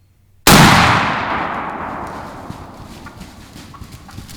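A shotgun blast about half a second in, very loud and sudden, its echo dying away over a couple of seconds: a turkey being shot.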